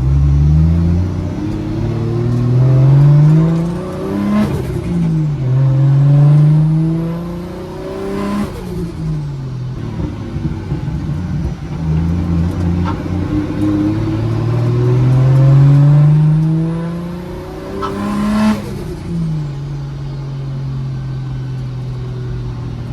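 Nissan C33 Laurel engine pulling hard three times, its pitch climbing steadily and dropping sharply at each gear change, then settling to a steady low run near the end. The car is on a street-tune drive and is still running a bit rich.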